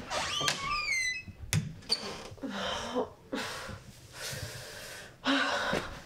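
A door hinge squeaking with high creaks falling in pitch, then a young woman breathing heavily and sighing in distress, with a sharp gasping breath near the end.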